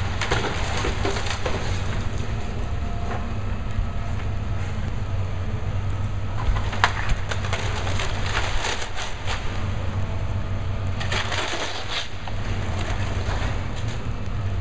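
Hitachi excavator demolishing a cinder-block building: the machine's steady low engine drone under the crunch and clatter of breaking blocks, wood and debris, with a sharp crack about seven seconds in and a longer burst of clatter around eleven seconds.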